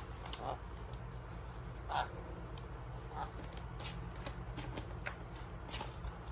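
Sun conures shuffling in a plastic mesh basket: scattered light clicks and scratches of their claws and beaks on the plastic, with a few brief soft calls.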